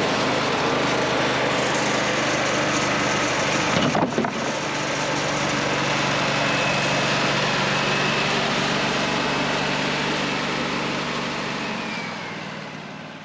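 Wood-Mizer LT40 Wide band sawmill running steadily, its band blade cutting through a very hard hickory log, with a brief knock about four seconds in. The sound winds down near the end as the cut finishes.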